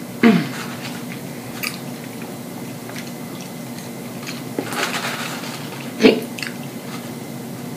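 A person chewing a mouthful of food with wet smacking, broken twice by a sudden short sound from the throat, about a quarter second in and again about six seconds in, as hiccups come on.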